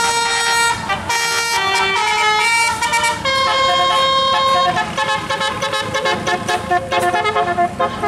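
Tour bus telolet musical air horn with roof-mounted trumpets playing a tune. It sounds held multi-tone notes that change pitch every second or so, including one long note in the middle, then a run of quick short notes near the end.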